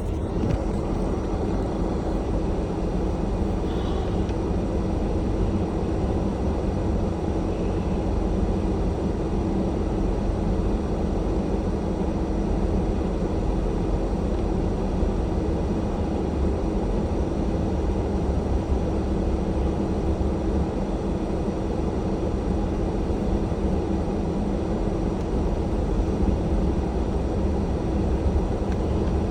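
Vehicle running steadily: a constant low rumble with a steady hum that holds unchanged throughout.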